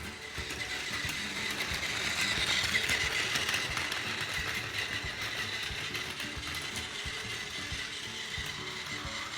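Plarail toy Doctor Yellow shinkansen (923 type) running on plastic track: its small battery motor and gears whir steadily with a fine ticking. It grows louder to about three seconds in, then carries on at a steady level.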